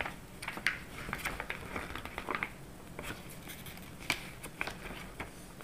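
Pages of a paper instruction booklet being handled and turned: soft rustling with scattered crinkles and ticks, a few sharper ones standing out.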